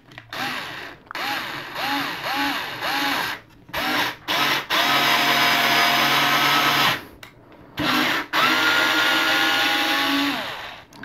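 Tilswall cordless electric screwdriver driving a 1.5-inch construction screw into a 2x4 without a pre-drilled hole. It starts with about five short trigger bursts, each rising and falling in pitch, then runs steadily for about two seconds twice, winding down near the end as the screw seats.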